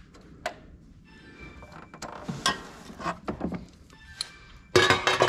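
Scattered clinks and knocks of hand tools and parts being handled against metal, one every second or so, with a louder cluster near the end.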